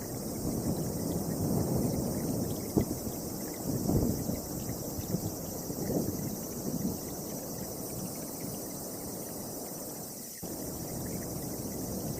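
Strong gusty wind buffeting the microphone, swelling in several gusts before easing, with an abrupt break about ten seconds in.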